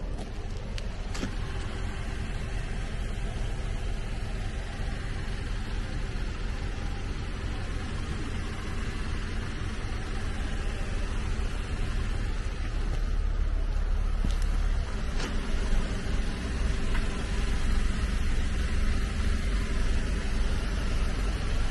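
Toyota Hiace Commuter's 2.7-litre four-cylinder petrol engine idling steadily, heard from beneath the van, getting a little louder in the second half.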